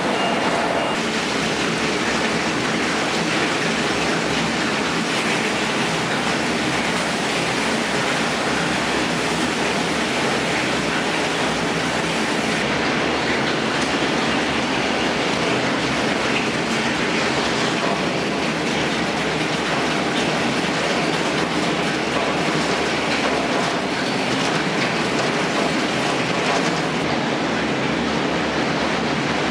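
Industrial waste shredding line running: a dense, steady clatter of shredded scrap riding the belt conveyors and tumbling off their ends, over the running machinery.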